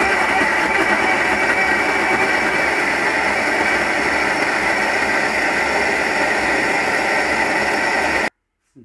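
Electric mixer grinder (mixie) running with its steel jar, grinding ripe jackfruit pulp into a smooth paste. It runs steadily, then switches off suddenly near the end.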